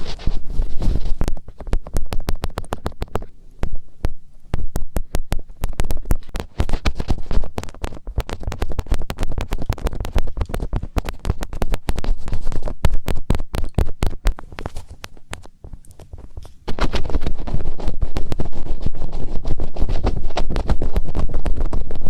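Fingertips rubbing and scratching right at a microphone's ear for ASMR finger ear cleaning, a dense stream of crackles and scratchy clicks close to the microphone. About three-quarters of the way through it turns into a denser, steadier rubbing.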